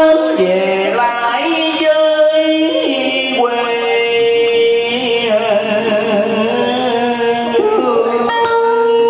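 Live Vietnamese đờn ca tài tử music: a man's voice singing a drawn-out melody with sliding notes over a plucked-string accompaniment.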